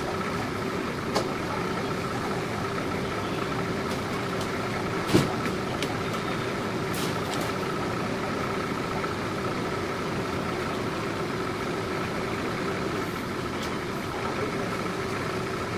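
Bucket truck's engine idling steadily, with one sharp knock about five seconds in.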